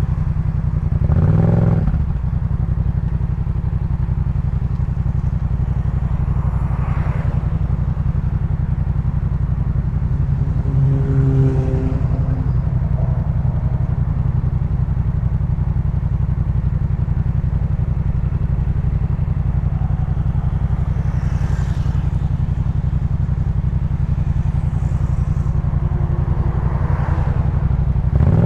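2018 Yamaha MT-07's 689 cc parallel-twin engine through a Jeskap K4 full aftermarket exhaust, running steadily at low revs. Brief rises in revs come about a second and a half in, around eleven seconds in and again at the very end.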